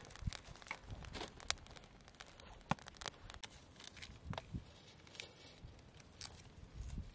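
Faint, scattered clicks, taps and rustling of things being handled, like packaging being crinkled and items being set down.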